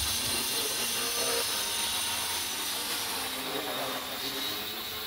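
Small radio-controlled helicopter and model planes in flight: a steady high-pitched whine from their electric motors, rotor and propellers.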